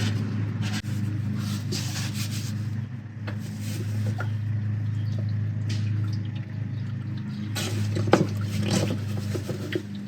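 Old transmission oil draining from a ZF5 manual transmission into a drain pan, over a steady low hum, with a few sharp clinks of tools.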